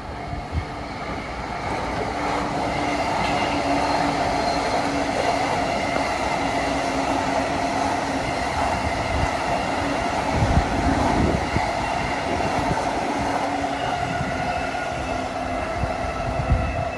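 A train passing close by, its wheels running over the rails. The sound builds over the first few seconds, holds steady through the middle, and eases off near the end.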